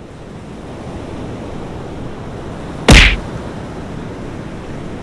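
Surf breaking on a beach: a steady wash of wave noise. About three seconds in there is one short, sharp thump, louder than the surf.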